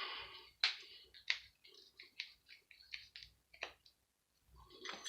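Light, scattered clicks and taps of small metal parts and a hand tool being handled while a power-supply unit is stripped for scrap: about six sharp ticks a half-second to a second apart.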